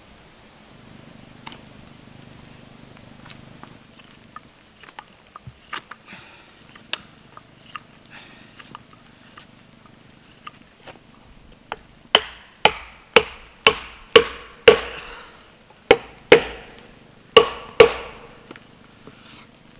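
Wood being split by batoning, a knife struck through a stick with a wooden baton: about ten sharp knocks in quick succession in the second half, after lighter scattered clicks of knife work on the wood.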